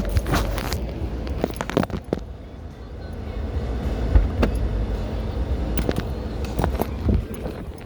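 Someone getting out of a parked car: a series of scattered clicks, knocks and rattles over a low steady rumble.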